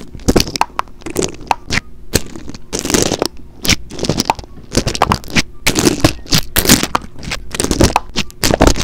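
Fishbowl beads in clear slime crunching and crackling as a mini microphone is pressed and poked into them, picked up right at the microphone: a dense, irregular run of sharp crunches, several a second.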